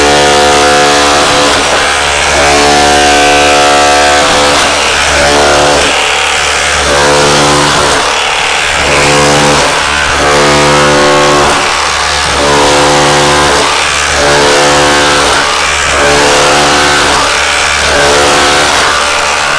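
Bosch GBH18V-26 cordless SDS Plus rotary hammer in hammer-only mode, driving a scutch comb chisel into brick: a loud, rapid, steady hammering that eases off briefly every couple of seconds as the chisel is repositioned.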